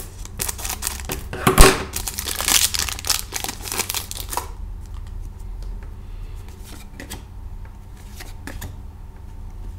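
A paper trading-card pack wrapper being cut open with scissors and crinkled as the cards are pulled out, with one sharp snap about a second and a half in. The crinkling stops after about four and a half seconds, leaving only faint handling of the cards.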